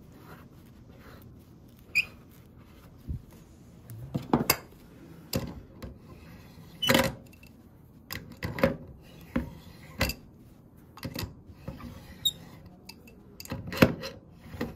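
Irregular metal clinks and knocks of an adjustable wrench working the case nut on a draft beer dispenser's stainless steel pan, as the nut is turned loose.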